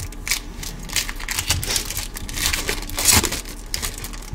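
Foil wrapper of a Pokémon Champion's Path booster pack crinkling in the hands as the pack is opened and the cards are pulled out, in irregular rustles that are loudest about three seconds in.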